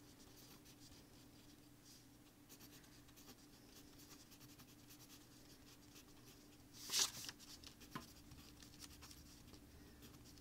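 Pen writing on paper on a clipboard, faint short scratchy strokes as letters are written out. One louder brushing sound about seven seconds in and a small click a second later; a faint steady hum runs underneath.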